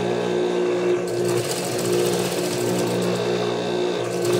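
Juki industrial sewing machine running and stitching fabric: a steady motor hum, with the needle's stitching noise coming in about a second in.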